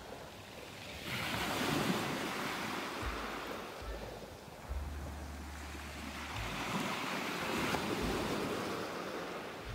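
Small sea waves breaking and washing up a pebble beach, swelling twice, about a second in and again about seven seconds in. Wind buffets the microphone throughout.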